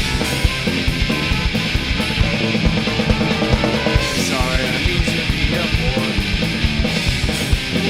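Ska-punk band playing an instrumental stretch of a song between vocal lines, with a steady, busy drum beat under guitar and bass.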